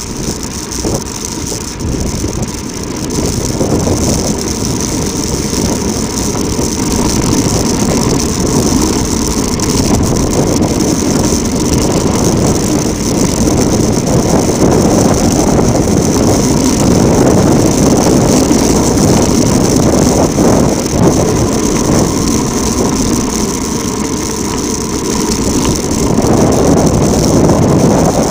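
Loud, steady rushing of a fast downhill ride: wind buffeting the microphone over tyres rattling across a rough track, getting louder over the first few seconds and swelling again near the end.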